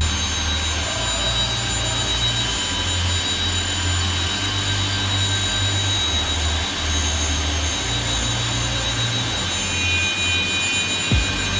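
Semac SM-4J2611 automatic four-edge panel cutting machine running: a loud, steady whir of its saw motors with a continuous high-pitched whine.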